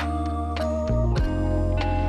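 Background music: sustained organ-like keyboard chords over a steady bass, the notes changing every second or so.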